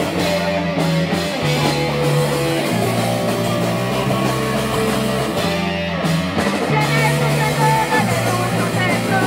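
Streetpunk band playing live: distorted electric guitar over a steady run of low bass notes.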